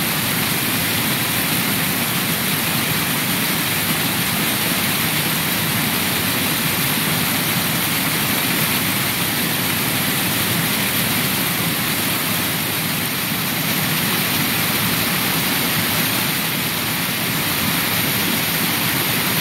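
Small creek waterfall, muddy water pouring over a clay ledge into a foaming pool: a steady rush of falling water.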